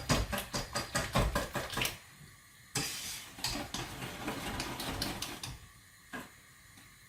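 Hand whisk beating an egg mixture in a mixing bowl, the wires clicking against the bowl several times a second, then after a short pause a softer, denser stretch of whisking and scraping, ending with a single knock.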